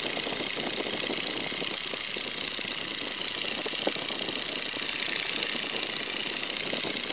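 Boeing Stearman biplane's seven-cylinder Continental radial engine running steadily at climb power in flight, under a continuous rush of wind over the open cockpit. There is a single sharp click about four seconds in.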